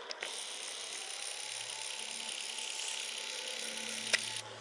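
A camera's lens zoom motor running as it zooms in: a steady hissing whir that starts with a click and cuts off abruptly, with a sharp click just before it stops.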